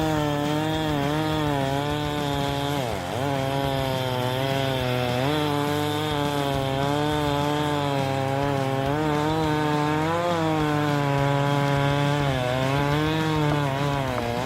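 Chainsaw engine running under load while cutting into a tree trunk, its pitch wavering throughout. About three seconds in it drops sharply and then picks back up.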